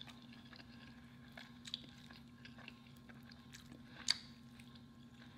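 Faint chewing of soft home-cooked food, mouth sounds close to the microphone, with a few small clicks of a metal fork on the plate, the loudest about four seconds in. A low steady hum runs underneath.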